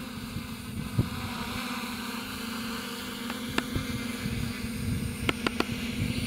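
Custom carbon-fibre quadcopter's motors and propellers humming steadily as it descends to land, with wind buffeting the microphone. A few sharp clicks sound, most of them near the end.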